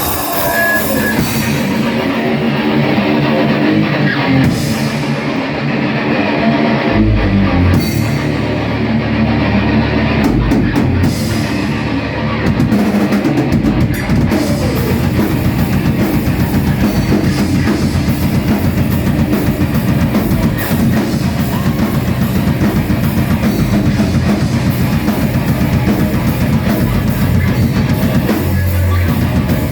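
A rock band playing live: electric guitar with a few scattered drum hits, then the full band comes in about fourteen seconds in with fast, dense drumming.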